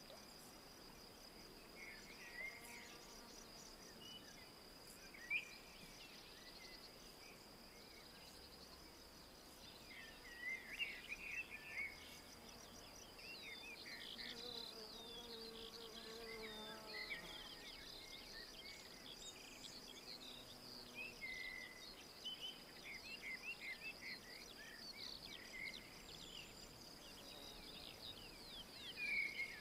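A steady high-pitched insect trill with many short bird chirps and calls over it; the birdsong grows busier from about ten seconds in.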